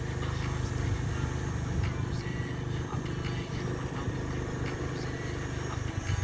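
A motor vehicle's engine running steadily as it drives slowly along a dirt road, with a few light clicks and knocks.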